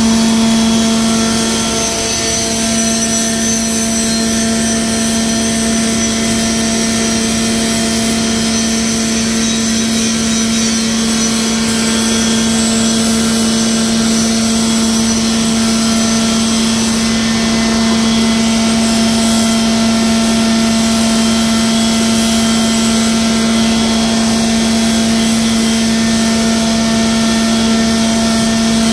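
Loud, steady drone of running machinery: a strong low hum with higher whining tones and a hiss over it, unchanging throughout.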